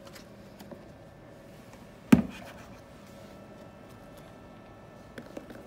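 Codman programmable valve programmer firing its transmitter head to set the shunt valve: one sharp click-thump about two seconds in, over a faint steady hum.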